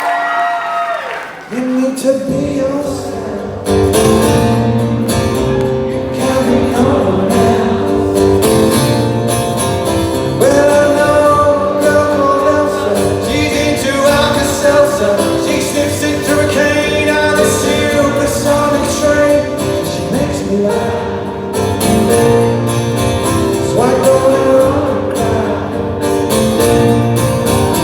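Live acoustic band performance with a male lead vocal singing over guitars. There is a short dip about a second and a half in, then the full band comes back in.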